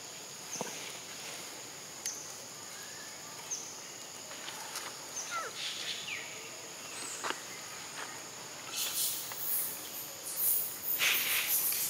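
Insects, crickets or cicadas, keep up a steady high drone, with a few short, sharply falling squeaks over it. A louder stretch of hiss-like noise comes near the end.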